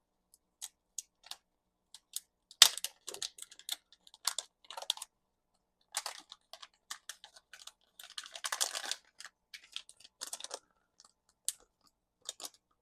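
Small parts of a 1/24-scale RC crawler axle being handled on a desk: scattered light clicks and taps of plastic and metal pieces, one sharper click about two and a half seconds in, and a brief scraping rustle about eight seconds in.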